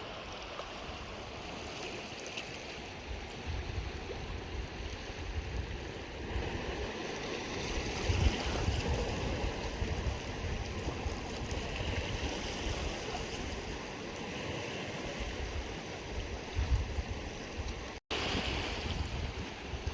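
Wind gusting on the microphone, with small lake waves washing on the shore. The sound breaks off for an instant near the end.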